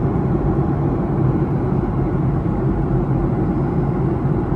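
Steady cabin noise inside a Boeing 737-800 airliner: the low rumble of its engines and airflow with a hiss above it, holding level throughout.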